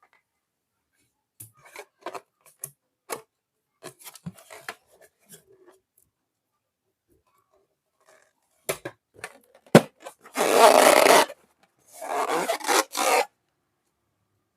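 Close-up scratchy rubbing and light clicks of objects being handled. Two sharp clicks come near the middle, followed by a loud rushing, crackling noise lasting about a second and then a shorter one.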